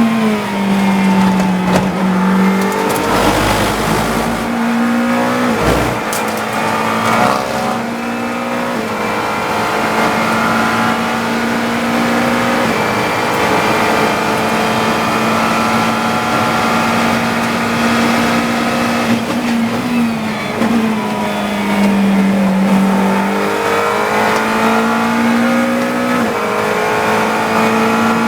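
GT3 race car engine heard from the cockpit, accelerating up through the gears and dropping in pitch under braking, once in the first couple of seconds and again about twenty seconds in, with a few low thumps a few seconds in.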